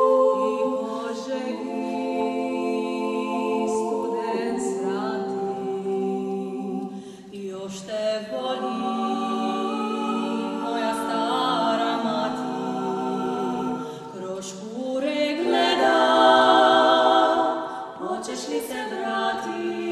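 Women's a cappella vocal ensemble of five voices singing in harmony, holding chords together for seconds at a time. The singing grows louder about three-quarters of the way through.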